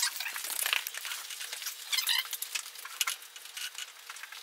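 A loaded hiking backpack being hoisted onto someone's back and strapped up: nylon fabric rustling, with buckles and strap webbing clicking and scraping at irregular moments. A faint steady hum runs underneath.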